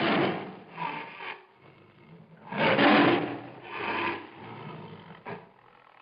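An animal's rough, rasping roars or growls in four or five bursts, the loudest about halfway through.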